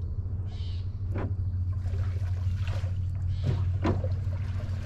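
Hassa (brown hoplo catfish) splashing and stirring in the flooded marsh grass: a few short, sharp splashes, two of them close together near the end, over a steady low hum.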